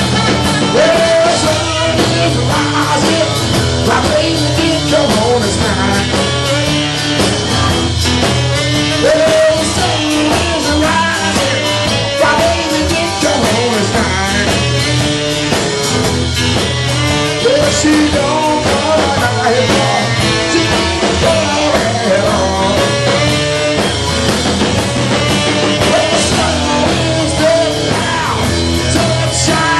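Live rock and roll band playing loud, with a tenor saxophone and a male singer on a microphone over the band.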